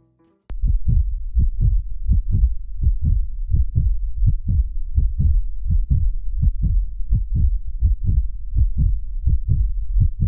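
Heartbeat sound effect: loud, regular low thumps of a beating heart, about three a second, starting half a second in.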